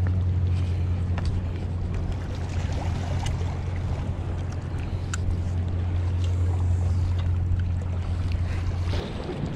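A steady low engine drone, like a boat motor running, that cuts off abruptly near the end, with a few faint clicks over it.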